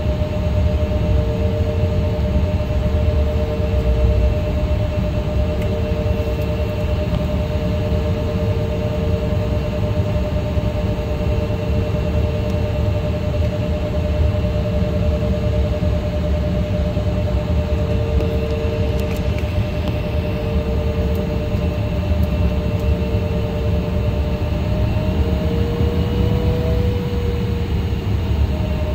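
Cabin noise of an Embraer E175 regional jet with its GE CF34 turbofans running steadily: a low rumble and rush of air, with a steady hum and a second hum that comes and goes every second or two.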